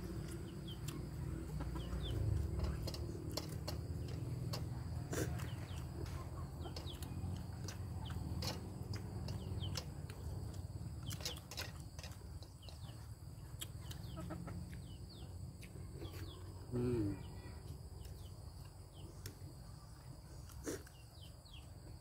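Chickens clucking in the background, with scattered small clicks and taps from eating by hand off a banana leaf. One short, louder call stands out late on.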